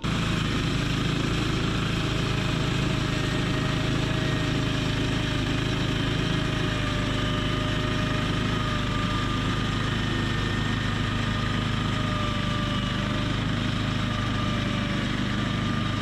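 Harbor Freight portable bandsaw sawmill's gas engine running steadily under load while its band blade cuts lengthwise through a stack of poplar slabs. An even, unbroken drone with a faint whine riding on top.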